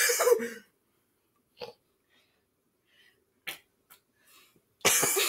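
A voice trails off into near silence broken by a few faint clicks. Near the end comes a sudden loud breathy burst from a person.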